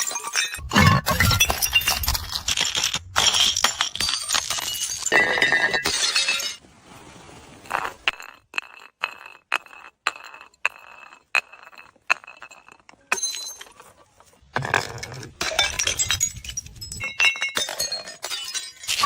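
Glass bottles smashing, with shards crunching in dense bursts. In the middle comes a quieter stretch of separate clinks with the glass ringing, then more breaking and crunching near the end.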